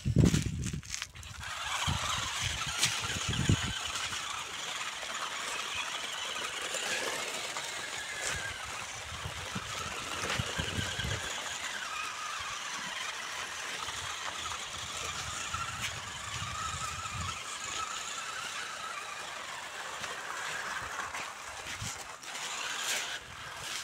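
Small electric motor and gear whine of a toy RC rock crawler driving over gravel while towing a loaded trailer, the pitch rising and falling with the throttle. A loud thump right at the start.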